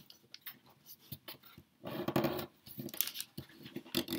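A sheet of origami paper being folded and creased by hand: rubbing and rustling as fingers press the fold flat, loudest about halfway through, with a few short crisp crinkles.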